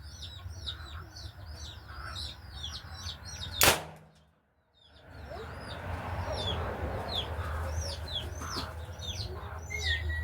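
Birds chirping in quick repeated falling calls, with one sharp crack about three and a half seconds in. Just after the crack the sound cuts out completely for a moment, and then the chirping comes back.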